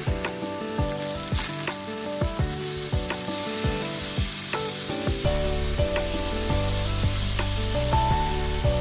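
Boneless chicken thighs sizzling steadily in a hot grill pan, with soft background music under it and a bass line coming in about five seconds in.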